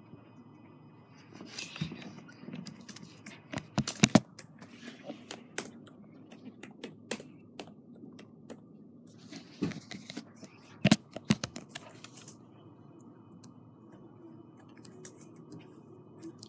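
Laptop keys and touchpad clicking in irregular taps while browsing pictures, with a few louder clicks about four and eleven seconds in.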